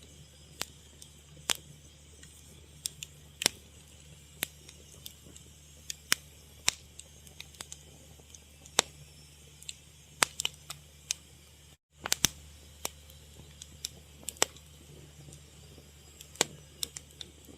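Fire crackling: irregular sharp pops and snaps over a low steady hum, with the sound cutting out for an instant about twelve seconds in.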